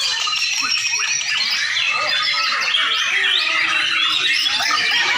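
Several white-rumped shamas singing at once, a dense overlapping tangle of whistles, rising and falling slurs and quick chirps.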